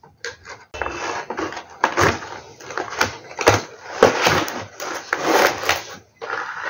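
Cardboard toy box with a plastic window being opened by hand: irregular scraping, rustling and small knocks of the packaging as the lid and tray are worked loose. It starts about a second in and pauses briefly near the end.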